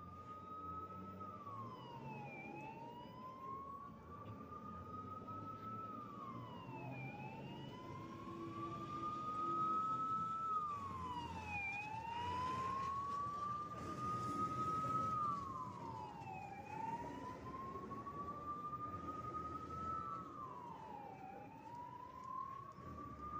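Fire engine siren wailing, its pitch rising slowly and then dropping quickly, over and over about every four to five seconds. A rush of noise swells beneath it in the middle.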